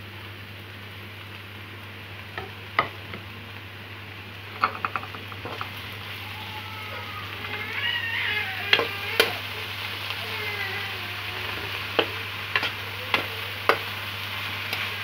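Sliced okra and chopped onion sizzling in a hot pan while being stirred, the stirring utensil knocking sharply against the pan about ten times. A cat meows several times in the middle.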